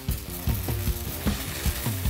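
Electric arc welder crackling and sizzling as it welds the strands together at the end of a steel wire-rope cable, under rock music with drums.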